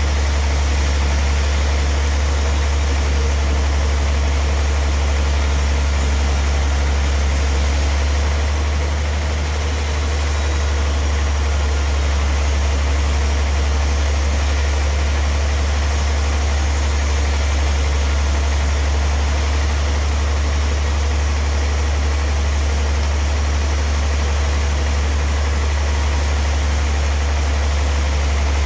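Sawmill machinery running steadily: a deep, even engine hum with a hiss over it, dipping slightly about eight seconds in.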